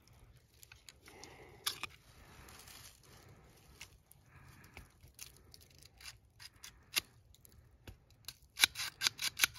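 Gritty scraping and handling of a mud-caked Taurus GX4 pistol as grit is worked into it, with a few sharp clicks and a quick run of clicks near the end.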